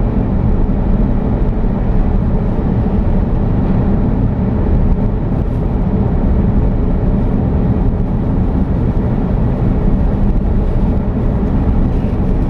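Steady low rumble of a vehicle on the move: road and wind noise with no distinct events.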